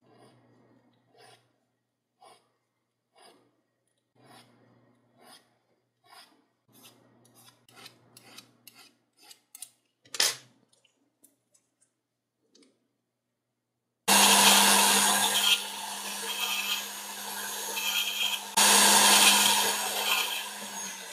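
Hand file scraping across the end of a small knurled brass lighter part in strokes about one a second, quickening to several a second before stopping about ten seconds in. After a pause a small rotary tool starts with a steady hum and runs loudly to the end, its level shifting as the bit works into the part's knurled grooves.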